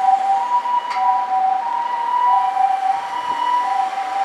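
High-spec ambulance's electronic siren sounding the Osaka-style two-tone 'pee-po', switching between a higher and a lower pitch about every two-thirds of a second. A brief click comes about a second in.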